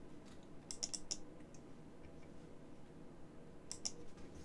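Computer keyboard keys tapped in two short clusters: a few quick taps about a second in and two more near the end.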